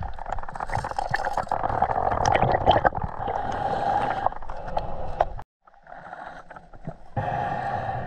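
Muffled river water heard from underwater, swirling and gurgling, with scattered clicks and scrapes from a snorkeler moving along the riverbed. The sound cuts out abruptly for a moment a little past halfway, comes back quieter, then louder again near the end.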